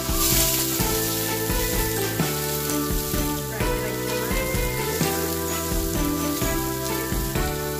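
Shrimp frying in a stainless steel pot, a steady sizzle, with a spatula stirring them. Background music with held notes plays throughout.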